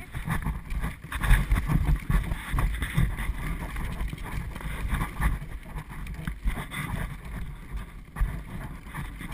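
Bicycle trailer rolling along a paved path, heard from inside: an uneven low rumble of the wheels on the asphalt, with wind buffeting the microphone.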